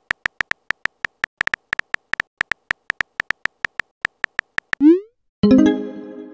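Phone keyboard tap clicks, several a second, as a message is typed. Near the end comes a short rising swoop, then a ringing electronic chime that fades out: the app's message-sent sound as the message appears in the chat.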